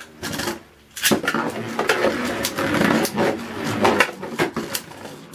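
Beyblade spinning tops in a plastic stadium. About a second in, a second top is launched with a rip-cord launcher. From then on the tops whir and scrape on the plastic with rapid clicks and clatter as they knock into each other and the stadium walls.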